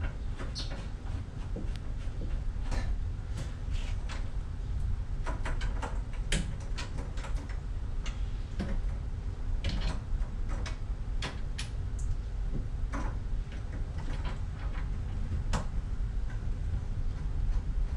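Irregular light clicks and ticks as a flexible water-heater supply hose and its threaded fitting are handled and screwed onto the heater's pipe connection by hand, over a steady low hum.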